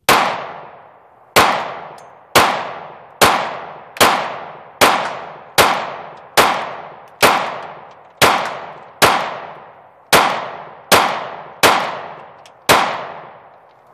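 Gen 4 Glock 26 9mm pistol fired fifteen times at a steady pace, about a shot a second, emptying a fully loaded ETS 15-round magazine without a stoppage. Each sharp report fades away in a long echo.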